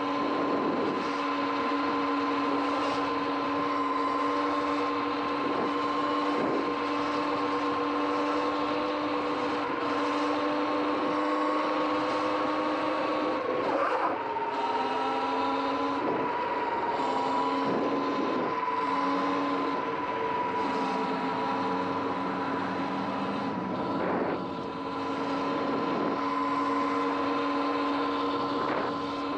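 Sur-Ron X electric dirt bike riding at a steady speed: a steady whine from the electric motor and drive over tyre hiss on wet asphalt. The whine's pitch shifts slightly about halfway through.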